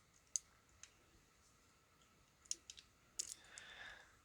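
Faint, scattered small clicks over near silence: single clicks twice in the first second, then a cluster of four or so about two and a half to three seconds in, followed by a faint soft rustle.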